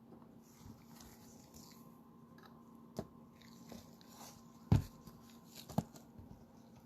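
Hands handling trading cards and hard plastic card holders on a table: a few light taps and clicks, the sharpest about two-thirds of the way in, over a faint steady hum.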